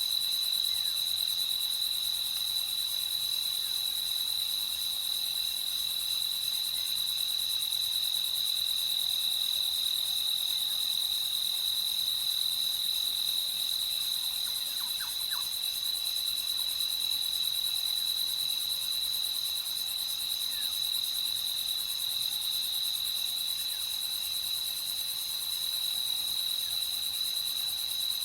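Crickets chirping in a steady night chorus, a continuous high-pitched trill that does not let up.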